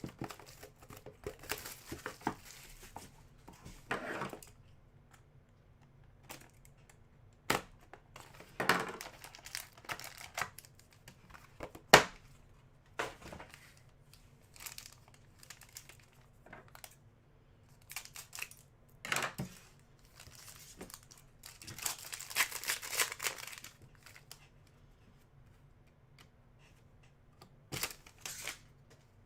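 Trading card packs being opened and cards handled: crinkling and tearing of pack wrappers with scattered sharp clicks and taps of cards, one sharp click the loudest about twelve seconds in and a longer stretch of crinkling near three quarters of the way through.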